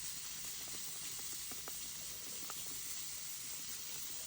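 Food sizzling as it fries with Parmesan on top, crisping up: a steady hiss with a few faint pops.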